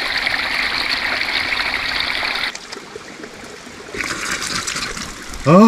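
Small mountain spring trickling and splashing over mossy rocks, close up, cutting off abruptly about two and a half seconds in. After that comes fainter running water, and from about four seconds in, splashing as cupped hands throw spring water onto a face.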